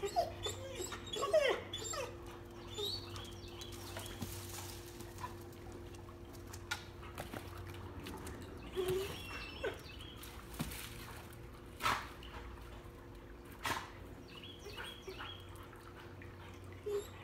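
Liver Dalmatians whining and whimpering in short, high, bending squeaks, bunched near the start, midway and at the end, with a few sharp knocks in between.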